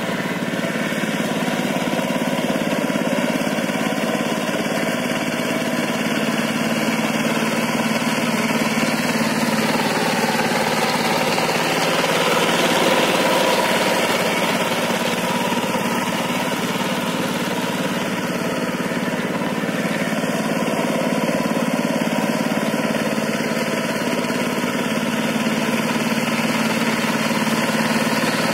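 Two-wheel power tiller's single-cylinder diesel engine running steadily under load as the tiller cultivates a flooded, muddy paddy field, swelling slightly louder about halfway through.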